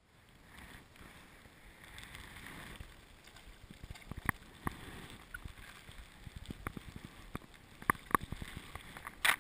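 Water lapping and gurgling around a small inflatable rowing boat, with light wind, and a scatter of sharp knocks and clicks from about four seconds in. A louder short burst comes near the end.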